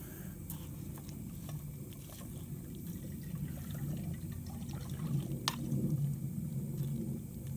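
Broth, mushrooms and buckwheat simmering in a Swedish army mess kit pot over its burner: a low, steady bubbling that grows a little louder in the second half. A single light click of metal on the pot about five and a half seconds in.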